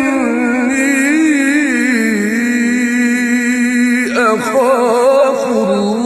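Melodic Quranic recitation in tajweed style: a single voice chanting with wavering ornaments, holding one long, steady note for about two seconds before moving into a new ornamented phrase.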